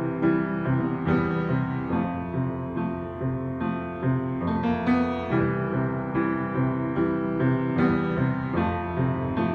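Yamaha M215 upright piano being played: chords and melody notes struck about twice a second, each ringing on into the next.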